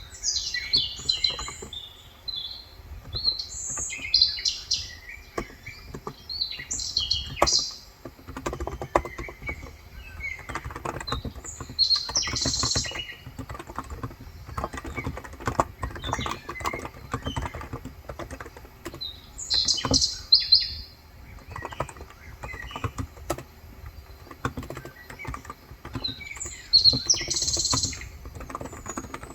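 Continuous typing on a Cox Endeavor electrostatic-capacitive tenkeyless keyboard with light 35 g switches: a dense patter of soft key clicks. Birds chirp in short, loud bursts every few seconds over the typing.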